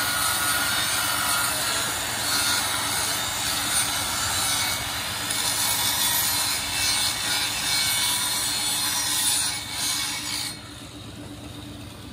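Handheld electric angle grinder with a flap disc grinding the weld seam on the inside of a steel wheel rim: a loud, harsh rasping hiss that wavers as the disc is pressed and moved around the rim. The grinding stops about ten seconds in, leaving a quieter hum.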